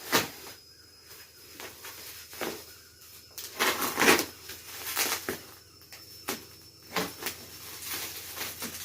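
Handling noise from unwrapping: scattered rustles of packaging and light knocks and clicks at uneven intervals, fairly quiet.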